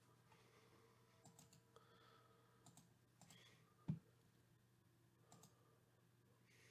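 Faint, scattered clicks of a computer mouse and keyboard, with one dull thump a little past halfway.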